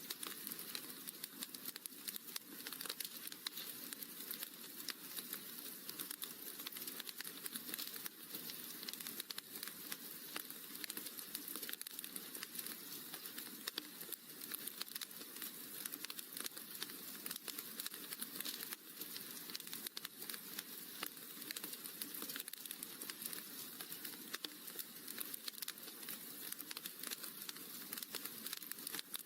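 Wood fire crackling in a fireplace: a steady stream of small pops and snaps over a light hiss.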